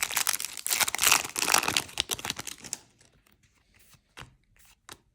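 Foil trading-card booster pack being torn open, with crackly crinkling for about three seconds. It is followed by a few light clicks as the cards are handled.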